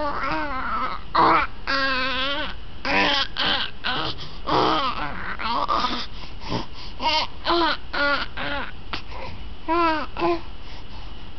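Infant babbling and cooing in a run of short, high-pitched vocal sounds, with a longer wavering one about two seconds in.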